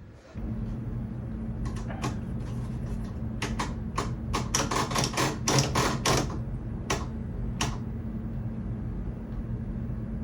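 Tube television giving a steady low hum, with runs of sharp clicks from about a second and a half to eight seconds in as its controls and cables are handled.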